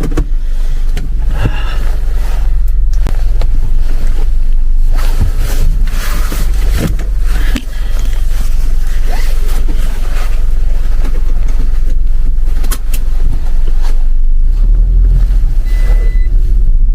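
Car cabin noise on a test drive: a steady low rumble of engine and road, with a few short knocks and rattles. The car is running normally.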